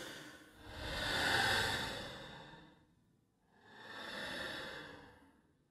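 Horror sound effect of ghostly breathy sighs: long, hissy exhalations that swell and fade, two full ones after the tail of an earlier one.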